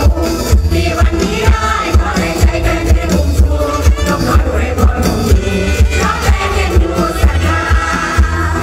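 Live mor lam band music with a heavy, steady drum beat at about two beats a second, with singing over it.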